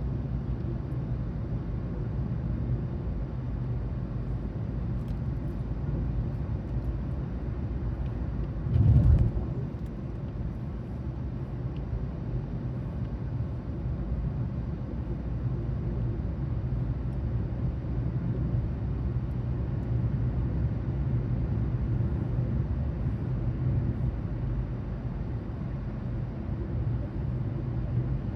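Steady low rumble of a car heard from inside the cabin, with one brief louder thump about nine seconds in.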